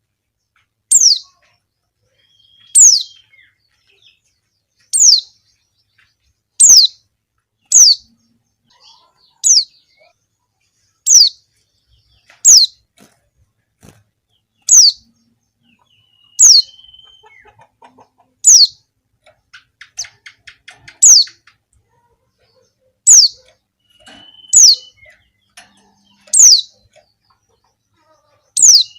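Female white-eye (pleci) calling: a single thin, sharp chirp sliding downward in pitch, repeated steadily about every one and a half to two seconds, the kind of female call used to stir male white-eyes into singing.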